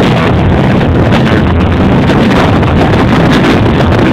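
Loud, steady, distorted noise from an overloaded microphone swamped by the party's sound, with no clear tune or voices coming through.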